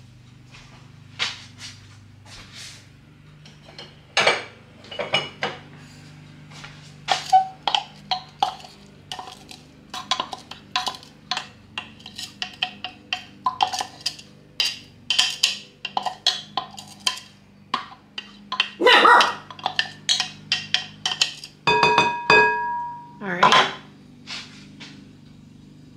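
Chopped onion being scraped and tapped out of a food chopper's container into a glass mixing bowl: many quick irregular taps and clicks of utensil and container against the containers, with one ringing clink near the end.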